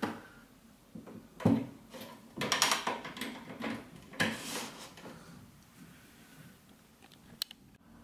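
Handling noise of a cable being plugged in: rustling, scraping and sharp clicks as a plug is pushed into a socket on the back panel of an audio device. The loudest knocks come about a second and a half in and around four seconds in, with a last short click near the end.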